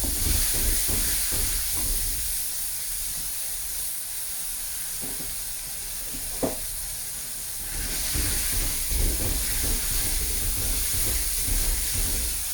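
Blended spice paste sizzling in hot oil as it is sautéed, with a steady hiss. A spatula scrapes and stirs it at the start and again in the second half, and there is one sharp click about six and a half seconds in.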